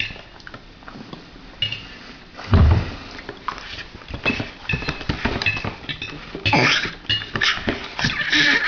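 A pet eating noisily: wet chewing and smacking clicks mixed with short, high squeaky whines, and one loud thump about two and a half seconds in.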